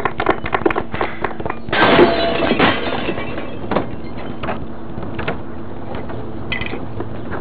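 A sudden crash about two seconds in, followed by scattered knocks and clunks.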